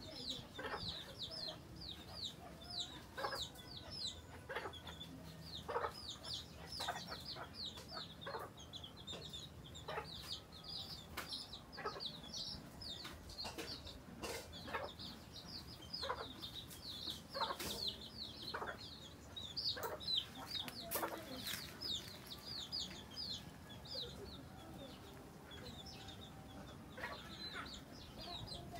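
A brood of young chicks peeping continuously: many short, high, falling peeps, several a second. A mother hen clucks among them at irregular intervals.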